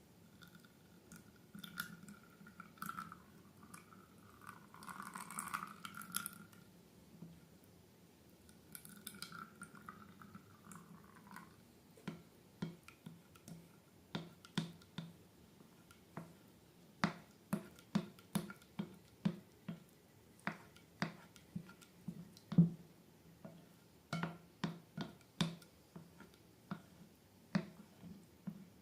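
Slime being worked by hand: soft squishy crackling at first, then a run of sharp little clicks and pops, about one or two a second, through the second half.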